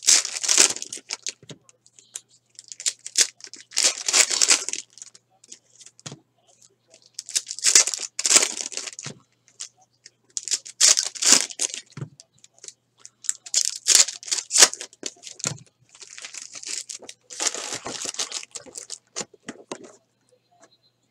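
Foil wrappers of 2017 Elite Extra Edition baseball card packs being torn open and crinkled, in six crackly bursts a few seconds apart.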